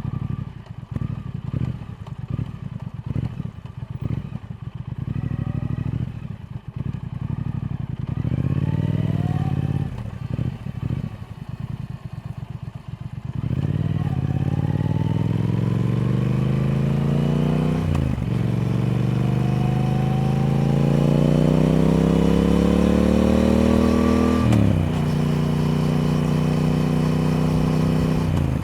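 Triumph Speed Twin's parallel-twin engine. It burbles at low revs with the throttle opened and closed, then accelerates hard from about halfway in. Its pitch climbs, drops sharply at two upshifts, and it settles into a steady cruise near the end.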